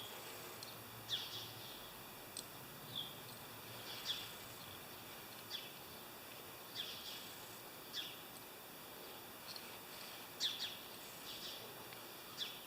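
Faint bird chirps: short, high, falling notes about every one to one and a half seconds.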